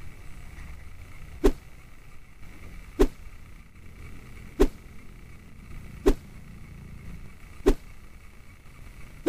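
Sharp knocks at a steady pace, about one every second and a half, over a low steady hum.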